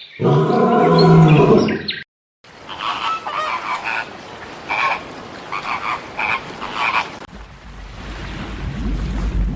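A deep, drawn-out animal call for about two seconds, then a brief cut to silence, followed by a series of short croaking calls. Near the end a low rushing noise builds up.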